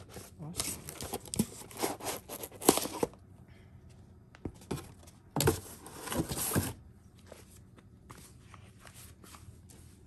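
Cardboard packaging scraping and crinkling as a power tool is pulled free of its folded cardboard insert, in two spells of a couple of seconds each, followed by a few light handling clicks.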